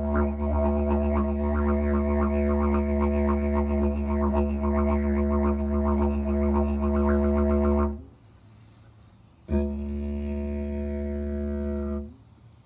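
Didgeridoo drone with a steady low fundamental, shaped by quick rhythmic overtone flutters for about eight seconds. It stops for a breath, then comes back with a falling 'wah' sweep into the drone, and breaks off briefly again near the end.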